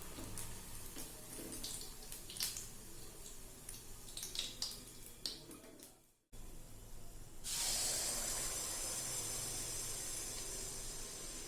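Light clinks of a utensil against a pan, then, after a brief cut, hot oil starts sizzling suddenly about seven seconds in as malpua batter fries in it, a steady hiss.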